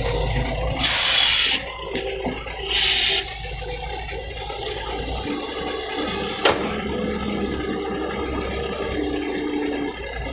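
Doosan DX140W wheeled excavator working: its diesel engine runs steadily under the whine of the hydraulics as it digs and swings a bucket of soil toward a dump truck. There are two loud rushing hisses in the first few seconds and a single sharp knock at about six and a half seconds.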